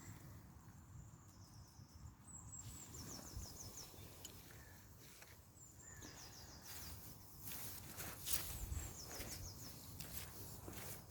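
Faint outdoor ambience in which a bird sings two short runs of high, quickly repeated notes a few seconds apart. Scattered rustling and light steps come in later.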